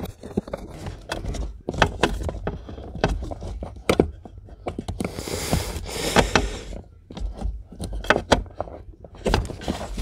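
Metal pry tool and screwdriver working a plastic push-in trim clip under a car seat: a run of small clicks, knocks and taps of metal on plastic, with a longer scraping rasp about halfway through.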